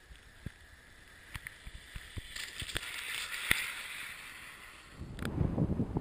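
Loaded touring bicycle with a one-wheel trailer rolling past over lake ice: a tyre hiss that swells to a peak a little past the middle, with scattered sharp clicks. About five seconds in it gives way to a low rumble of wind on the microphone.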